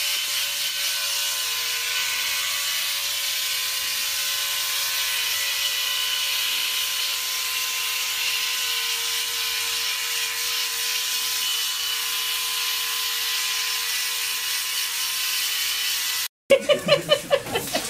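Small electric shaver buzzing steadily as it is run over a young monkey's head. The buzz cuts off abruptly near the end.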